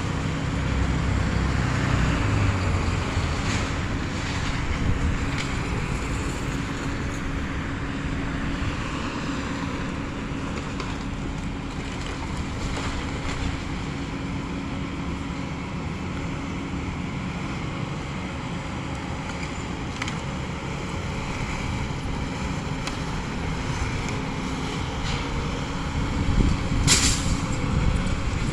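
Excavator's diesel engine running steadily under load with a constant hum, while a house is demolished, with scattered knocks and cracks of breaking material. A sharp crack comes near the end.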